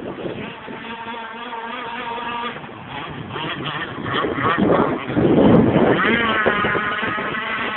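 Radio-controlled petrol boat's Zenoah GS26 two-stroke engine running, then revving up, its pitch climbing about six seconds in.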